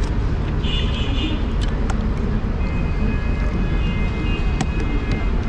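Steady low rumble of street traffic, with a few sharp clicks and a faint steady high tone that comes in about halfway through.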